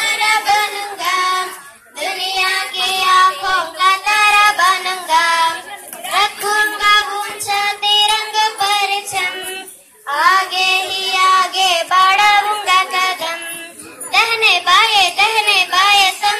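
Girls singing a song, phrase by phrase, with short breaks between phrases.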